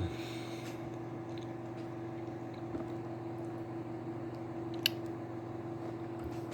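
Microwave oven running with a steady electrical hum, with faint chewing of a brownie and one sharp click about five seconds in.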